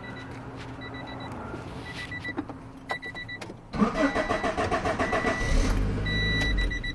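Starter cranking the 1994 Honda Civic's engine for about three seconds without it catching, the no-start caused by a main relay making poor contact (no spark, no fuel). Before it, a short electronic beep repeats every second or so.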